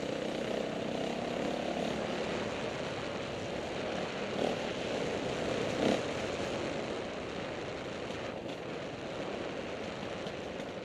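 KTM 450 XC-W dirt bike's single-cylinder four-stroke engine running steadily under way, with wind rush on the on-board microphone. Two brief knocks, about a second and a half apart, near the middle.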